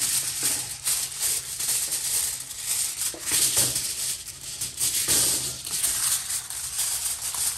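Aluminium foil crinkling and rustling in irregular crackles as a sheet is spread and folded around a wire grill rack.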